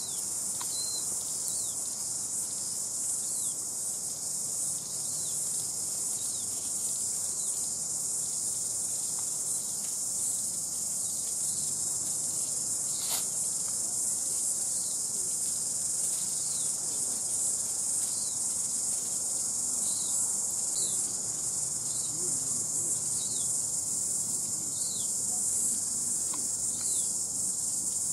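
Steady, high-pitched daytime insect chorus, with short falling chirps sounding every second or two and a single click about halfway through.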